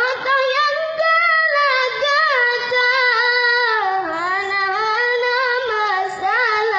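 A boy singing solo, unaccompanied, in a high voice: one long flowing phrase of held notes that waver and bend in pitch, dipping lower in the middle and climbing again.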